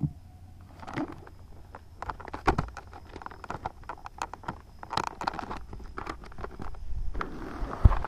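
Footsteps crunching on a loose gravel road in an irregular run of short crunches, with knocks from the action camera being handled, over a low wind rumble on the microphone.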